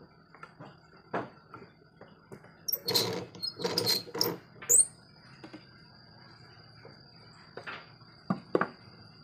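Scrapes and knocks of a wooden beam being shifted and set on a mortising machine's table by hand, its clamp handwheel being worked. There is a burst of scraping about three to four and a half seconds in, with a sharp high squeak at its end, and two sharp knocks near the end.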